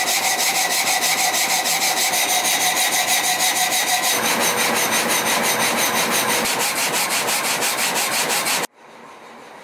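Horizontal band sawmill blade cutting through a giant sequoia log, a loud steady sawing with a regular pulsing. The sound changes about four seconds in and cuts off suddenly near the end.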